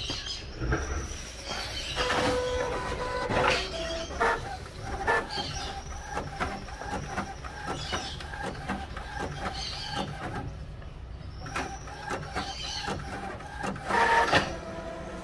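Inkjet sublimation printer with a bulk ink system printing a nozzle-check page. The print-head carriage motor whines up and down with each sweep, among clicks and clacks, and there is a louder clatter near the end as the page feeds out. The check is being printed after a head cleaning to see whether the blue channel now fires.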